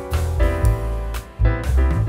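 Instrumental background music with a deep bass line and drum hits.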